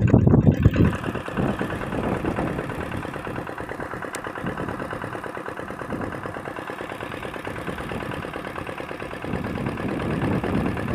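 An engine running steadily at a constant, even beat, a little louder in the first second.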